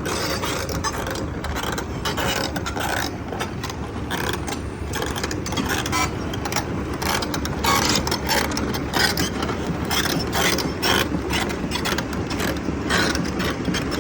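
Sany SY265 excavator's diesel engine running under a steady low rumble, its steel tracks clanking and rattling irregularly as the machine crawls along.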